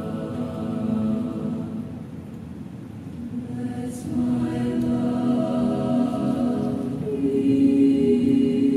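Mixed chamber choir singing a cappella in long held chords, which soften about two seconds in and then swell louder toward the end.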